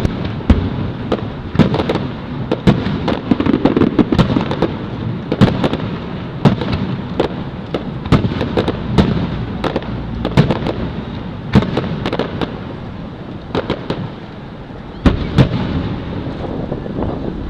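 Fireworks display: a rapid, irregular barrage of aerial shell bursts and crackling reports over a continuous rolling rumble of distant booms and their echoes, with a sharper cluster of loud bangs about 15 seconds in.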